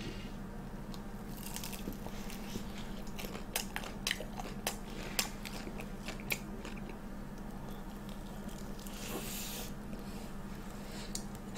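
Close-miked biting and chewing of a whole-mozzarella corn dog with a cubed sweet-potato crust: scattered crisp crackles as the fried coating breaks, between quieter chewing, over a faint low hum.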